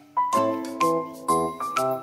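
Background music: a light keyboard melody of single notes struck one after another, about five in two seconds, each ringing and fading.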